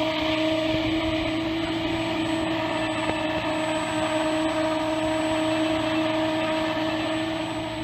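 Stock electric motor and five-blade propeller of an FMS Pilatus PC-21 1100mm RC model plane running at steady throttle, a steady pitched whine over propeller wash, meant to mimic a turboprop. It eases slightly near the end.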